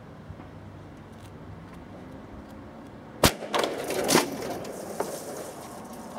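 Plastic milk bottle filled with oxyhydrogen (knallgas) exploding: one sharp bang about three seconds in, then about a second of crackling and clattering with a second loud crack, as the bottle ruptures.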